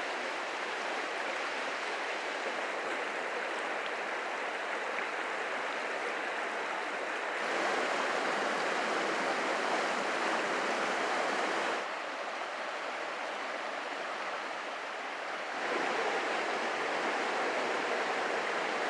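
Water rushing over rocks in a shallow rocky river riffle, a steady hiss of white water. It steps louder about seven seconds in, drops back a few seconds later and rises again for the last few seconds.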